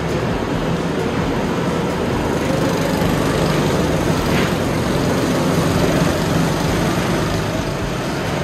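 Several rental go-kart engines running together around the track: a steady, overlapping engine drone.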